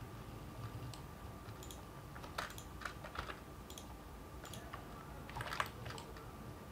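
Faint, irregular clicks of a computer keyboard and mouse during work at a computer, over a thin steady hum.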